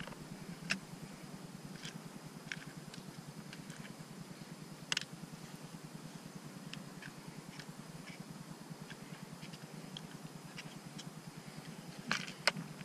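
Scattered small clicks and taps of a clear plastic tackle box and lures being handled, with one sharper click about five seconds in and a few in quick succession near the end, over a faint steady low hum.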